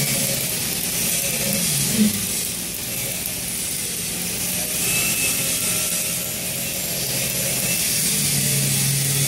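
Electric arc welding on a steel pipe: the arc sizzles and crackles steadily.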